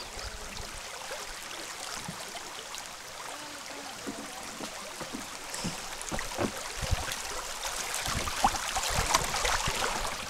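Shallow river water rushing and splashing against a canoe's bow as it runs through a riffle, getting louder in the second half, with occasional low bumps.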